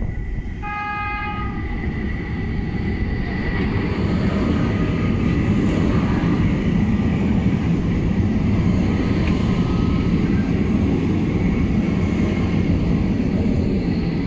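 Porto Metro light-rail train gives a short horn signal about half a second in, then runs past close by, its rumble growing louder and staying loud, with a thin high steady whine over it.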